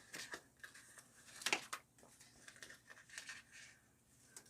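Faint crinkling and rustling of a sticker and its backing paper being handled and peeled, with a sharper crackle about one and a half seconds in.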